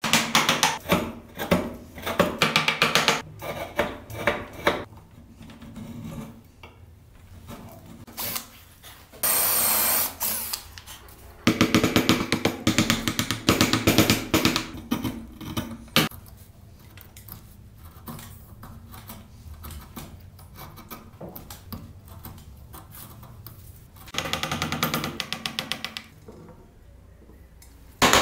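Hand tools cutting wood: runs of quick saw and chisel strokes. A power tool runs for about a second roughly a third of the way in, and there is a single sharp knock a little past halfway.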